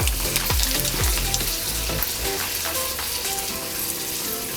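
Whole dried red chillies sizzling and frying in hot mustard oil with fenugreek seeds, a steady hissing crackle as the spice tempering cooks in the pan.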